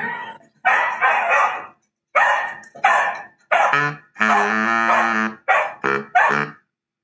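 Dogs barking: a run of about eight barks, most short, two drawn out to about a second each.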